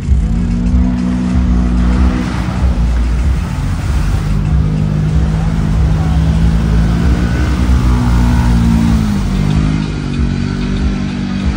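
Kawasaki KRX 1000 side-by-side's parallel-twin engine held at high revs as it plows through deep mud and water. The pitch steps up at the start, drops about three seconds in, and dips and climbs again near the end.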